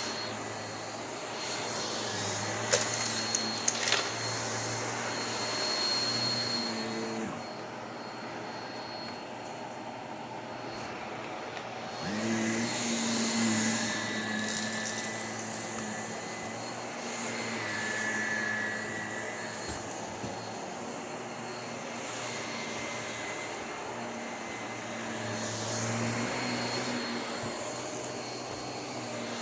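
Vacuum cleaner running steadily while it is worked over the floor, its motor hum rising and falling in loudness every few seconds, with a few sharp clicks about three to four seconds in.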